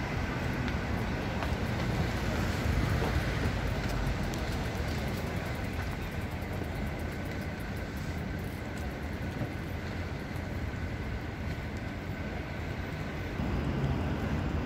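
Steady city street traffic noise: a continuous low rumble of vehicles running along a busy road.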